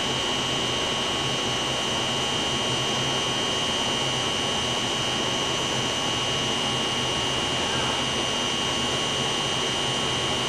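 Steady machinery noise: an even rushing hiss with a constant high-pitched whine, unchanging throughout.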